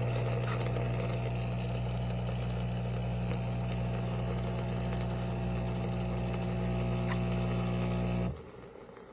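De'Longhi Dinamica Plus espresso machine frothing milk: a steady pump hum with hiss that cuts off abruptly about eight seconds in, when the preset amount of milk foam has been dispensed.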